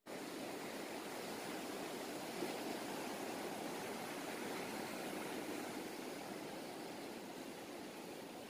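Ocean surf breaking and washing onto a beach: a steady, even rushing of waves.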